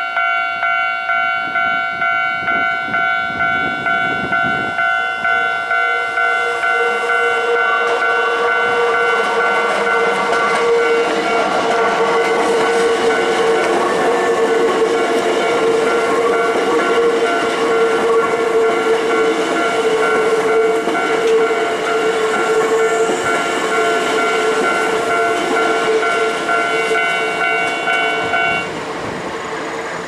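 Level-crossing warning bell ringing about twice a second while a Hankyu electric train passes on a sharp curve, with a steady tone from the train coming in about five seconds in. The bell stops near the end, leaving the sound of the train running.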